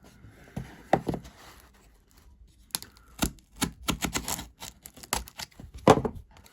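A box being handled and opened: a run of quick taps, clicks and knocks, sparse at first with a thump about a second in, then coming several a second from about halfway, with a heavier knock near the end.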